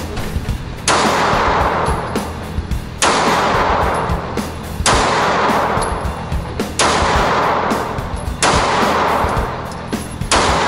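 9mm handgun shots at an indoor range, with a rock music track laid over them.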